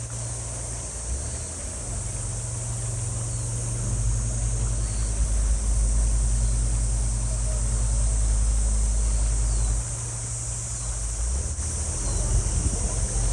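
Low steady drone of a sightseeing boat's engine cruising past offshore. It grows louder about four seconds in and eases off again after about ten seconds, over a faint high hiss.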